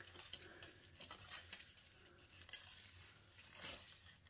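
Faint, scattered rustles and small clicks of gloved hands handling wet, bleach-coated hair close to the microphone; otherwise near silence.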